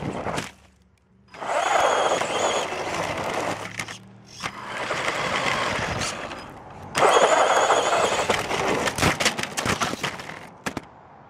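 Tamiya Super Hornet RC buggy's electric motor whining in three bursts of throttle, each with a rushing noise, heard from a camera mounted on the car. The last burst carries a run of sharp knocks near the end.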